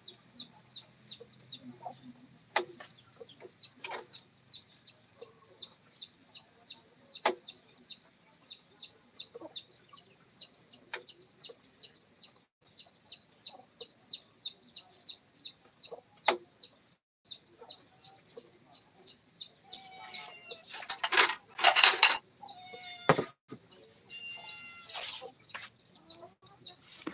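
Chickens: a steady run of short, high peeps several times a second, with a loud chicken call about twenty seconds in, the loudest sound. A few sharp knocks fall in between.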